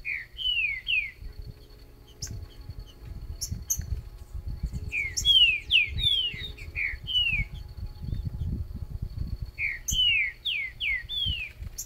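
Green-winged saltator (trinca-ferro) singing three short phrases of quick, loud, downward-slurred whistles, one at the start, one in the middle and one near the end. A low rumble runs underneath, with a few sharp clicks.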